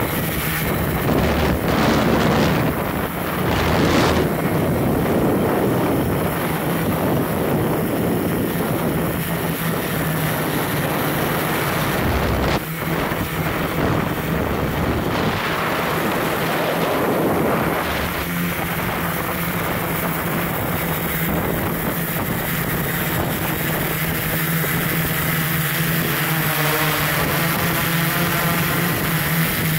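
Multirotor drone's motors and propellers humming steadily in flight, picked up by the camera it carries, with wind buffeting the microphone in gusts, strongest in the first few seconds and again around the middle.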